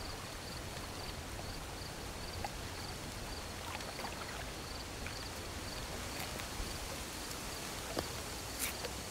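Night ambience: a cricket chirping steadily about twice a second over an even hiss of trickling water. A few faint taps and rustles, the clearest near the end.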